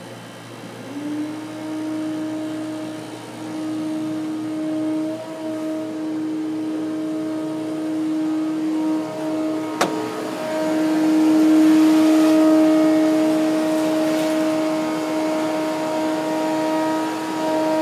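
Carpet-drying air movers running, a steady pitched hum that swells and fades as they are passed, with one sharp click about ten seconds in. They are drying out flood-soaked carpet.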